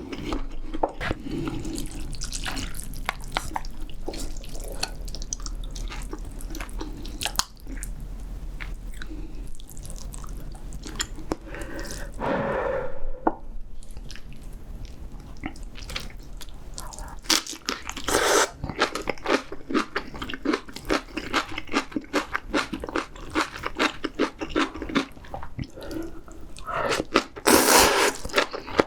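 Close-miked eating of spicy seafood ramyeon: wet chewing with many small mouth clicks and crunches, and louder slurps of noodles and broth about 12, 18 and 27 seconds in.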